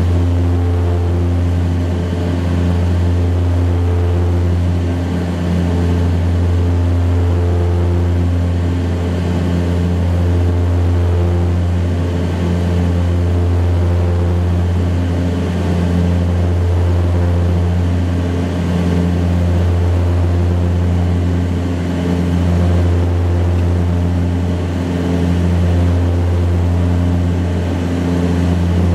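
Cabin noise of an Embraer EMB-120 Brasilia turboprop climbing after takeoff: a deep, steady propeller drone that swells and fades in a slow throb about every three seconds, over a hiss of airflow.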